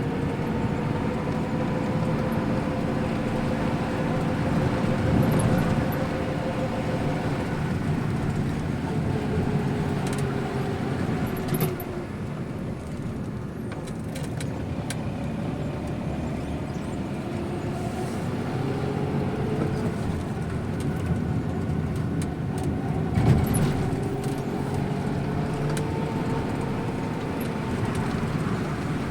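Engine of a moving road vehicle running under way, its pitch slowly rising and falling with changes of speed, over steady road and tyre noise. A single sharp knock about three-quarters of the way through.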